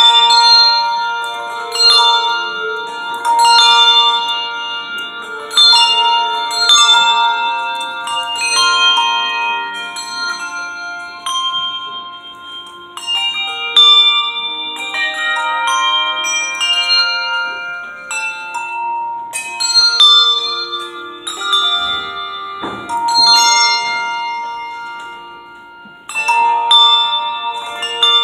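A handbell choir playing a piece: many tuned handbells rung in turn, each note striking sharply and ringing on so that the notes overlap into chords.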